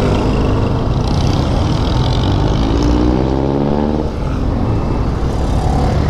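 Motor vehicle engines in slow city traffic: a steady low engine rumble, with one engine revving up, its pitch rising from about a second and a half in, then dropping away about four seconds in.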